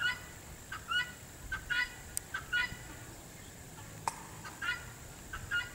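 Farm poultry calling: a run of short, harsh calls, about two a second, with a pause of a second or so in the middle.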